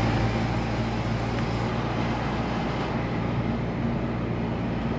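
Steady engine hum and tyre-and-road noise heard inside the cabin of a moving Volkswagen car.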